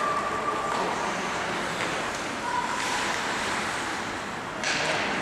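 Ice-hockey skates scraping and hissing on the rink ice, with brief shouts from players or spectators. A louder scrape comes about four and a half seconds in.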